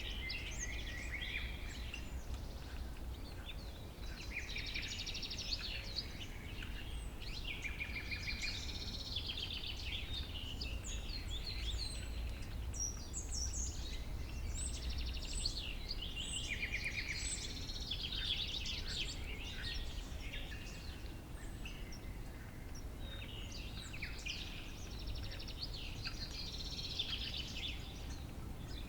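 Summer meadow ambience: several small birds singing and calling at once, with chirps and rapid trills overlapping throughout, over a low steady rumble.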